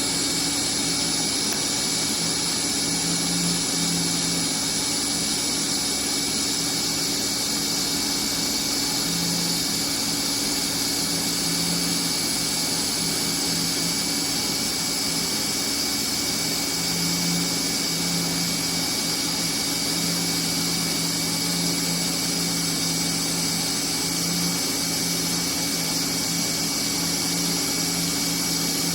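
TIG welding arc running steadily on a stainless V-band flange, a constant high-pitched hiss over a low electrical hum.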